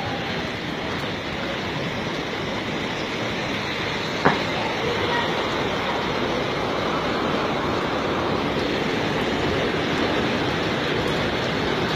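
Steady rushing noise of heavy storm rain and floodwater running down a street, with one sharp knock about four seconds in.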